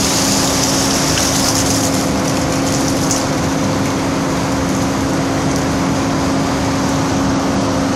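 Wastewater gushing from a discharge pipe and splashing into a grated drain, over a steady machinery hum. The splashing hiss fades about three seconds in, and the hum goes on.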